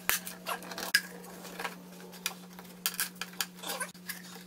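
Cut-down plastic 2-liter soda bottles being handled and fitted neck-down into holes in a wooden board: a string of irregular light clicks, taps and knocks of plastic on wood and on other bottles.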